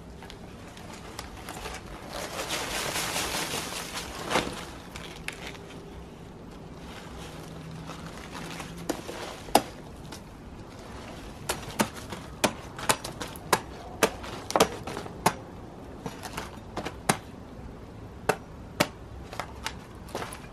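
A large kitchen knife hacking through a cabbage's thick stalk: a run of sharp chops, about one or two a second, in the second half. Before them, a couple of seconds of rustling from the cabbage leaves being handled.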